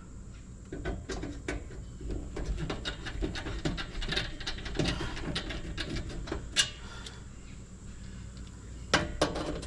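Scattered small clicks, scrapes and light knocks of hand work at a breaker panel, with a sharper knock about six and a half seconds in and a quick run of clicks near the end.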